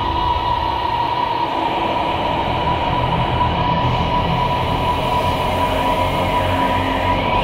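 Experimental drone soundtrack: a dense, steady rumbling noise bed with one held high tone, and faint gliding tones rising and falling near the end.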